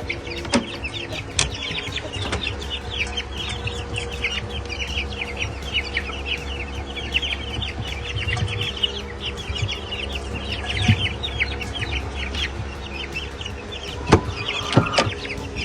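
A flock of small young chickens peeping and chirping rapidly and without a break, excited while feeding on scrambled eggs, over a steady low hum. A few sharp knocks come near the start and near the end.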